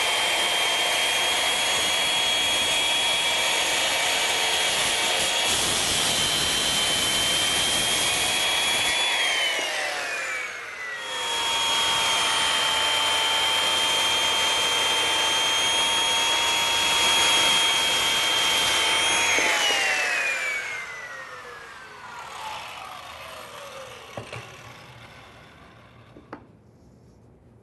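Circular saw cutting at an angle across a pressure-treated board. It runs at full speed for about nine seconds, its whine falls away, then it starts again and cuts for about eight seconds more before winding down with a falling whine. A few light knocks come near the end.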